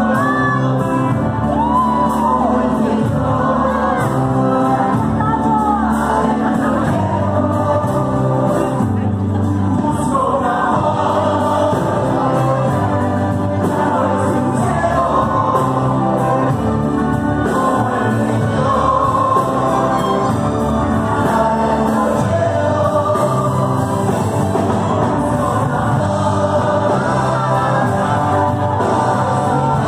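Live Latin pop band playing through a PA with a male lead vocalist singing into a handheld microphone.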